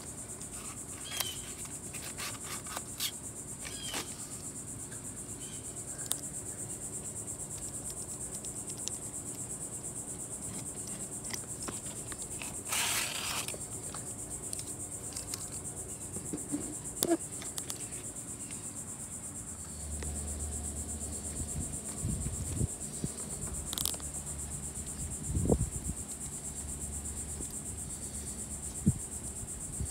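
Steady high-pitched chorus of insects, with scattered light clicks, a brief rustle about halfway through and a low hum for several seconds in the second half.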